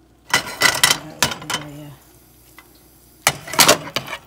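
Scraping and knocking as a bowl is tipped and scraped out over a nonstick frying pan, in two loud spells: one in the first half and a shorter one near the end.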